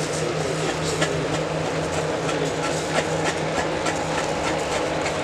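Red-hot umu stones sizzling and crackling in fa'ausi sauce in a wooden tanoa bowl as the sauce burns, with many small irregular pops. A steady low hum runs underneath.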